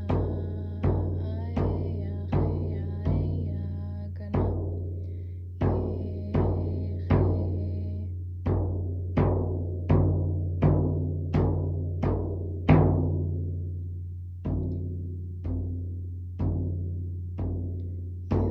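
Yup'ik frame drum (cauyaq) beaten with a wand in a steady dance rhythm, about one and a half strikes a second, each beat ringing out and fading. A hard accented beat near the two-thirds mark is followed by a short pause, and the strikes then come a little slower.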